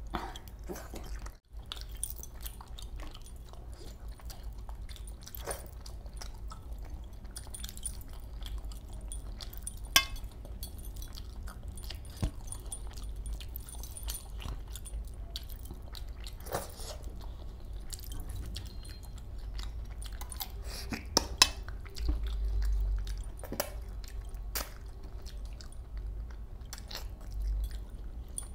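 Close-up sounds of a man eating fish masala with his hands: chewing, mouth and finger sounds in the wet curry. Scattered clicks and clinks run through it, the sharpest about ten seconds in and twice around twenty-one seconds.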